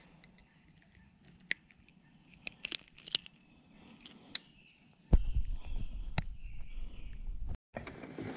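A faint, steady high insect drone with a few sharp clicks, then about five seconds in a loud low rumble that cuts off suddenly.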